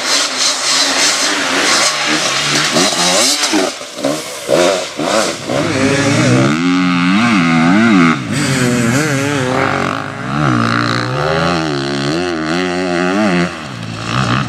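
Enduro motorcycle engine revving hard, its pitch rising and falling again and again as the throttle is worked.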